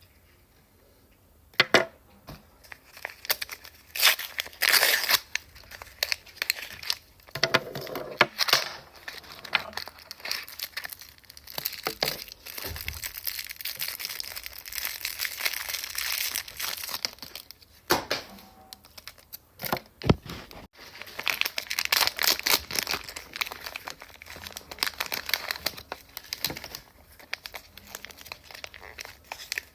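Plastic toy-package wrapping being crinkled and torn open by hand, in irregular rustling, crackling bouts with sharp snaps.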